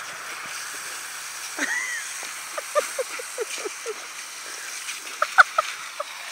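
Dogs snapping and lapping at water from a garden hose: a quick run of short wet gulps around the middle, a few sharper snaps about five seconds in, and a short rising squeak near the start, over a faint steady hiss.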